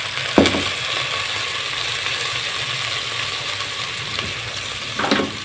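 Water sizzling and crackling in hot ghee with fried onion and ginger-garlic paste, a steady spitting hiss as the water boils off in the pot. A single sharp knock comes about half a second in.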